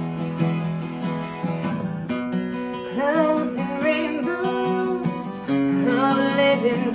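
Acoustic guitar strumming chords, with a voice singing a melody over it from about halfway in.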